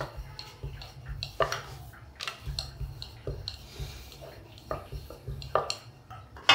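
Wooden rolling pin rolling out a round of puri dough on a wooden board, giving irregular light knocks and clicks as it goes back and forth, with a sharper knock near the end.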